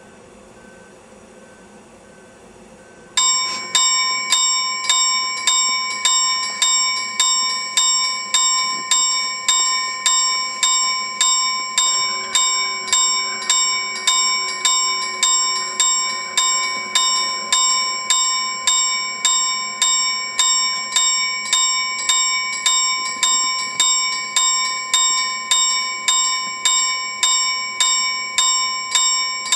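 Level crossing warning bell starting up about three seconds in, then ringing steadily at about two strokes a second: the signal of an approaching train.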